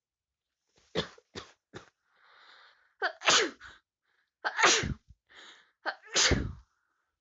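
A person with a head cold sneezing three times in a row, each loud sneeze with a falling pitch and a quick inhale before it. A few short, sharp catching breaths come about a second in, before the first sneeze.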